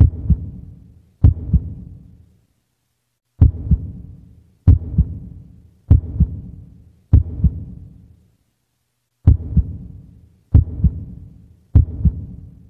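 Heartbeat sound effect: low double thumps, lub-dub, repeating about every 1.2 seconds, with two brief pauses.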